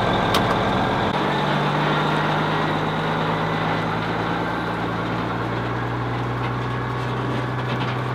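Tractor-trailer's diesel engine idling with a steady low hum. About a second in, the sound changes from the rumble heard inside the cab to the engine heard from outside the truck.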